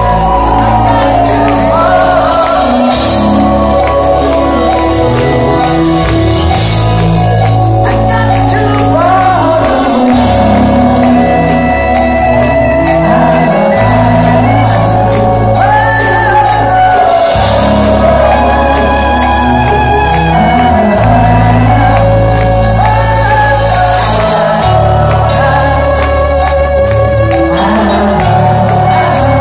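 Live rock band playing loud: a male lead singer's amplified vocal over drums and long bass notes that change every few seconds, heard from within the audience.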